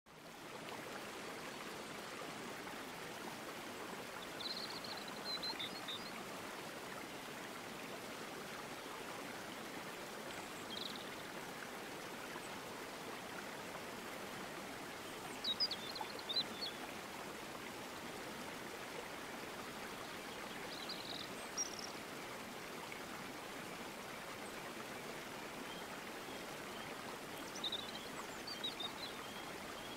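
Steady rush of flowing water, like a stream, with short high chirps breaking in every five seconds or so.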